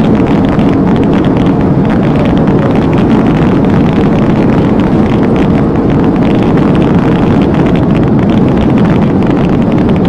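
Steady road, tyre and wind noise of a car driving at highway speed, heard from inside the cabin, loud and unbroken with a faint steady hum.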